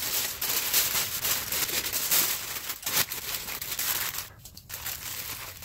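Aluminium foil crinkling and crackling as it is folded and crimped by hand around a brisket, a dense run of crackles that grows quieter near the end.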